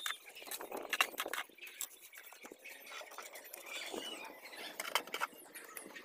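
Steel mason's trowel scraping and spreading wet mortar on hollow clay bricks, a run of short scrapes and light knocks, with a sharper knock about four seconds in as the mortared brick is handled.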